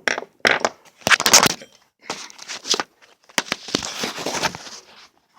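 Several irregular bursts of scraping and crunching as small metal parts of a Marx toy train locomotive are worked by hand. The loudest stretch comes about one to one and a half seconds in.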